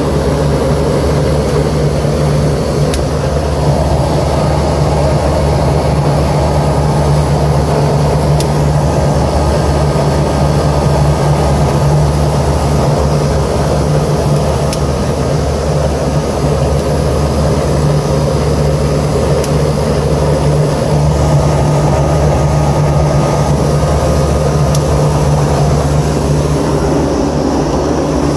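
Residential air-conditioning condensing unit running: compressor and condenser fan with a steady low hum. The system shows no superheat, which the technician reads as an overcharge or a restriction, with liquid refrigerant flooding back to the compressor.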